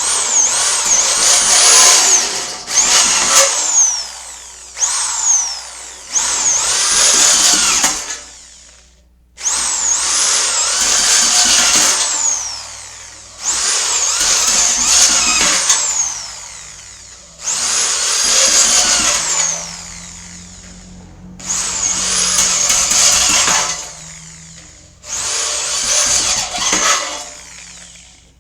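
Cordless drill with a step drill bit boring holes through metal strips, in about nine separate runs of one to three seconds with short pauses between them. Each run carries a high screech that rises and falls as the bit cuts.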